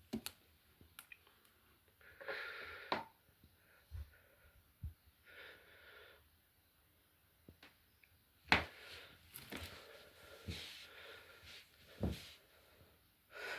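Faint handling noises: scattered light clicks and knocks with a few brief soft rustles, as the printer's boxed parts and packaging are moved about.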